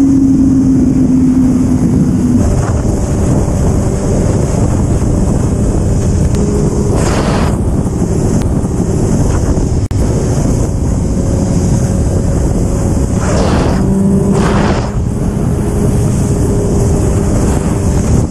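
Heavy wind rush over the microphone of a Yamaha R1 sport bike at high highway speed, with the bike's inline-four engine note faint and steady underneath. A few brief louder rushes of air come about 7, 13 and 15 seconds in.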